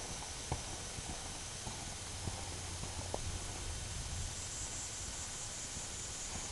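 Hoofbeats of an American Saddlebred gelding moving on grass, a few distinct muffled thuds in the first half, then fading, over a steady background hiss and low rumble.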